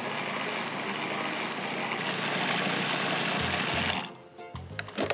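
Food processor motor running steadily, pureeing a thin roasted tomatillo salsa verde. It stops about four seconds in, followed by a few knocks as the machine is handled.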